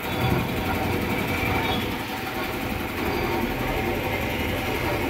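Gati 1 HP single-piston air compressor, its pump belt-driven by a Godrej electric motor, running steadily under test and drawing air strongly through its intake filter.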